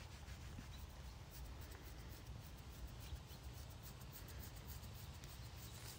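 Fingers scratching a Fjord horse's coat on its rump, a faint run of quick rubbing strokes.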